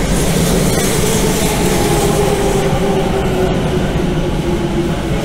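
Tokyu Line electric commuter train pulling into a station, running past at slowing speed with a steady rumble of wheels on rails. Its motor whine falls slowly in pitch as the train brakes to a stop.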